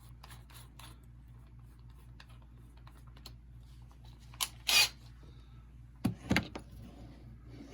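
Small clicks and light scraping as a thread tap is worked by hand into the metal of a die-cast toy car, with a short louder rasp about four and a half seconds in and a dull knock about six seconds in.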